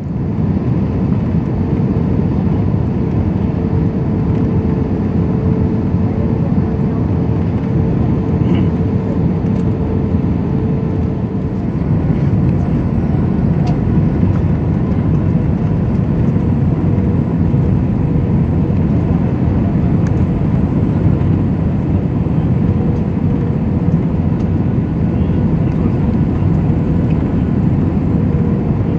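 Steady cabin noise of a jet airliner in flight, heard inside the cabin: engine and rushing air, with a faint steady hum that fades out about eleven seconds in.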